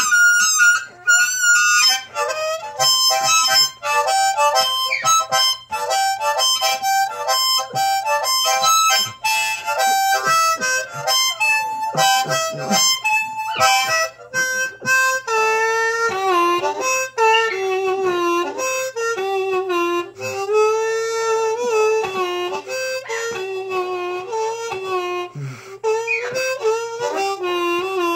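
Blues harp (diatonic harmonica) played solo in a slow blues: quick, choppy runs of short notes in the first half, then longer, lower notes that bend and waver in pitch.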